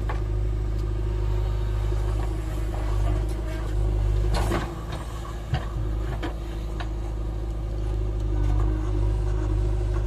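JCB 3DX backhoe loader's diesel engine running steadily under digging load, a low drone with a steady hum above it. It eases for a moment about halfway through, with a few sharp knocks around then.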